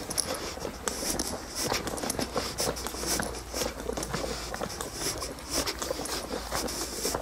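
Footsteps on a dirt-and-gravel canal towpath: a steady run of small irregular scrapes and clicks.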